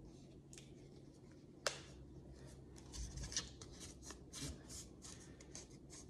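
Hands handling a plastic video doorbell unit: one sharp plastic click, then a run of soft scrapes and rubs of fingers and nails on the plastic casing.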